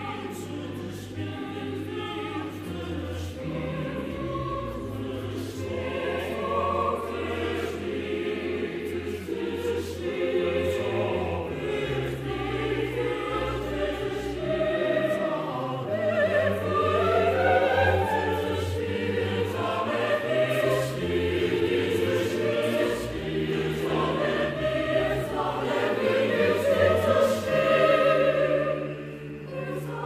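Background music: a choir singing over held low notes.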